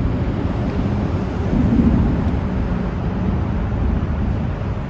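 Wind rumbling on the microphone, a steady low rumble mixed with city street traffic, swelling slightly about two seconds in.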